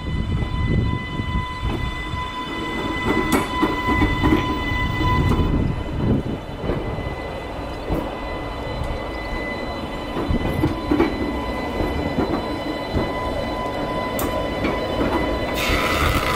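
Island Line Class 484 electric train rolling slowly, with a low rumble, a steady electric whine, and a few clicks as its wheels cross rail joints. A short hiss comes near the end.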